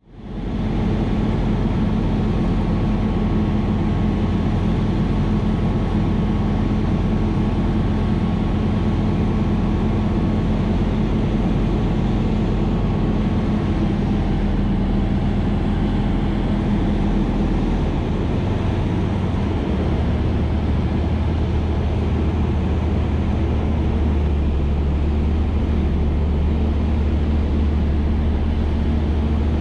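Van's RV-12 light-sport airplane's Rotax 912 flat-four engine and propeller droning steadily, heard inside the cockpit during a landing approach. The engine note shifts about two-thirds of the way through as the power setting is changed.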